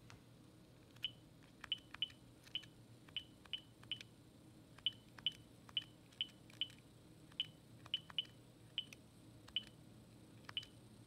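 Cordless phone handset keypad beeping as a long number is dialled: a short high beep with a faint click for each key press, about eighteen presses at an uneven pace.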